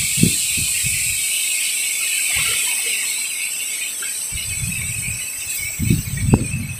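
Strong gusty wind rushing steadily, with low rumbling buffets of wind on the microphone in the first second and again through the last two seconds.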